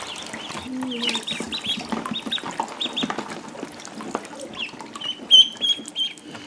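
A group of ducklings peeping, many short high calls overlapping throughout, with one louder, longer peep near the end.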